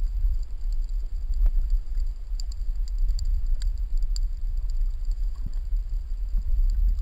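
Underwater noise heard through a waterproof camera housing while snorkeling: a steady low rumble of water moving around the camera, with scattered faint clicks.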